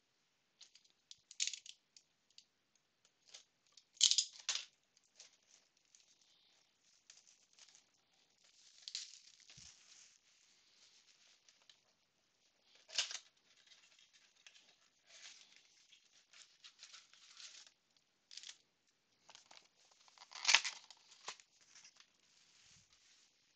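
A cardboard Panini Prizm trading-card box being torn open, its wrapping and the foil card packs inside rustling and crinkling. It comes in scattered short tears and rustles, the loudest about four, thirteen and twenty seconds in.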